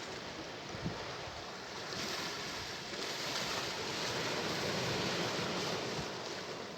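Sea waves washing onto the shore, the wash swelling from about two seconds in and easing off near the end. A brief low thump about a second in.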